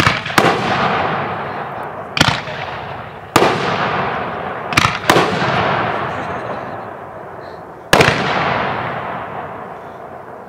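Aerial fireworks bursting in the sky: about seven sharp bangs, some in quick pairs and others a second or more apart. Each bang is followed by a long echo that slowly dies away.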